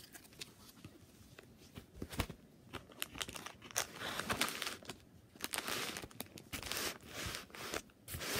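Plastic packaging of a diamond painting kit crinkling and tearing as it is unwrapped by hand, in irregular rustling bursts with sharp crackles. The rustling starts about two seconds in and grows busier.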